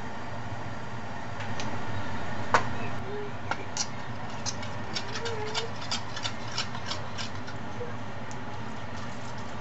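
Liquid poured into a pot of maitake mushrooms for about a second and a half, then the mushroom broth simmering with many small irregular pops and ticks, over a steady low hum.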